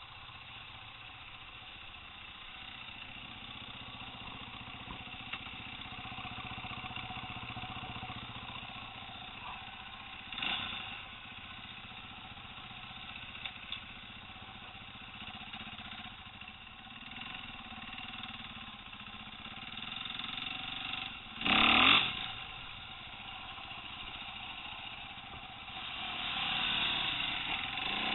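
2010 KTM 450 EXC's single-cylinder four-stroke engine running at low revs. There is a short louder burst about ten seconds in and a loud rising rev about three quarters of the way through, and it runs louder again near the end.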